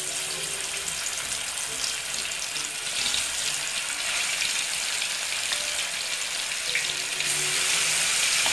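Pieces of fish frying in hot mustard oil: a loud, steady sizzle that swells as another piece goes in, about three seconds in and again near seven seconds.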